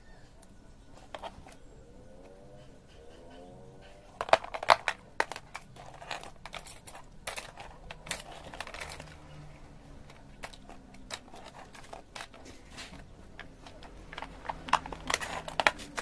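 Small plastic syrup vials clicking and knocking together as they are handled and dropped into a plastic tray, with some crinkling of plastic wrap. The clicks start about four seconds in and bunch up again near the end.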